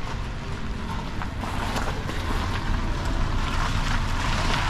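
Rain pattering with wind rumbling on the microphone; the patter grows louder and denser about a second and a half in.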